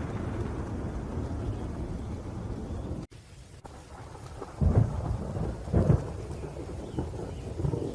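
Thunderstorm: steady rain with low rolling thunder that cuts out abruptly about three seconds in, then quieter rain broken by two loud low thunder claps around the middle and a smaller one near the end.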